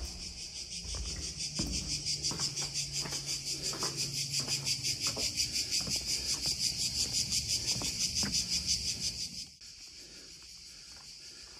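Cicadas singing in a fast pulsing chorus, about five pulses a second, which cuts off suddenly about nine and a half seconds in. A few faint footfalls sound underneath.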